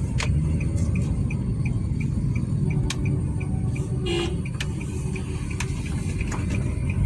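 Nissan Juke driving on the road, its engine and tyres making a steady low rumble with no misfire, the cylinder 2 misfire now repaired. A light ticking repeats evenly about three times a second, with a few odd clicks and a short tone about four seconds in.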